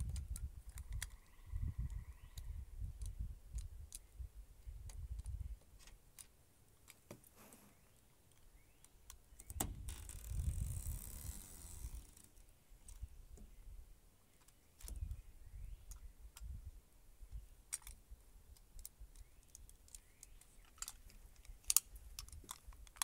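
Utility knife cutting through vinyl screen mesh along the plastic track of a pet-door frame: scattered faint ticks and scrapes, with a longer scratchy scrape about ten seconds in, over an intermittent low rumble.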